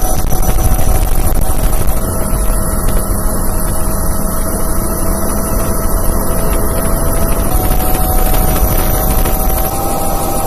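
Helicopter in flight: steady, loud rotor and turbine noise with a steady whine on top. The pitch of the whine shifts slightly a few times.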